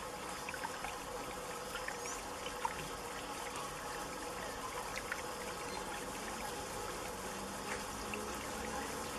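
Water trickling and splashing steadily from a small decorative Buddha water fountain, with many small droplet plinks over a continuous flow.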